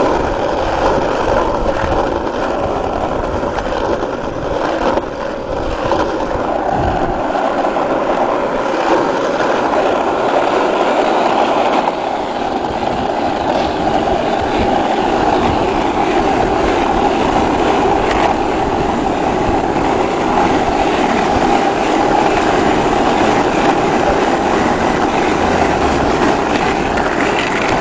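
Skateboard wheels rolling over road asphalt: a loud, steady rumble that does not break.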